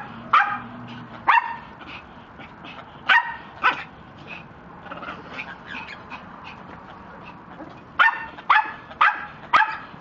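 Small dog barking in sharp, high yaps. There are a few single barks in the first four seconds and fainter ones in between, then a quick run of five barks about half a second apart near the end.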